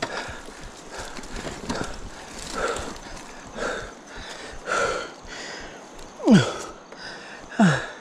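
A person breathing hard from exertion while pushing a loaded bicycle up a steep slope, a heavy breath about every second. Near the end come two short groans of effort that drop sharply in pitch.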